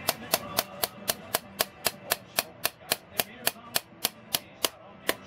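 Small hammer rapidly tapping the metal body of a Kohler engine's carburetor, about four sharp taps a second with a brief pause near the end, knocking stale fuel and gunk out of a carburetor that has long sat unused.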